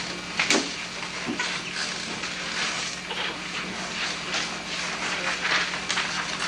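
Steady hiss and low hum of an old camcorder's audio track in a classroom, with scattered faint ticks and one sharp click about half a second in.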